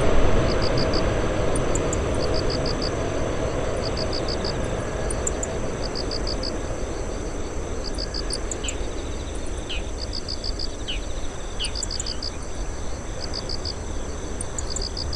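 Jet noise from a landing Airbus A380 fading away as the four-engine airliner rolls out down the runway, a steady rumble growing slowly fainter. Over it, insects chirp in short high pulsed trills about once a second.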